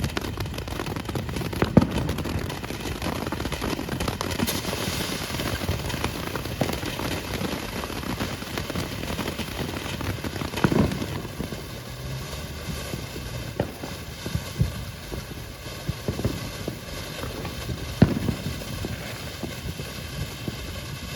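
TNT Super Nova fountain firework spraying with a steady hiss and crackle, with a few sharper pops, the loudest about 2, 11 and 18 seconds in.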